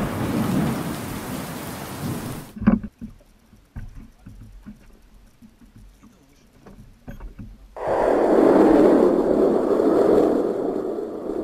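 Thunder rumbling from a storm cloud over the sea. A long rumble breaks off suddenly a couple of seconds in. A few light knocks follow in the quiet, then a second rumble swells near the end and slowly fades.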